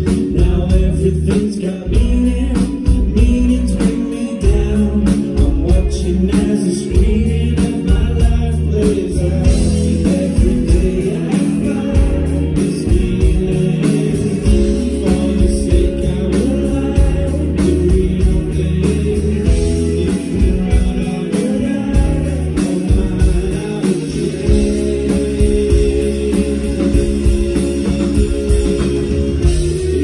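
Live rock band playing through the stage PA: a lead singer over electric guitars and a drum kit with a steady beat.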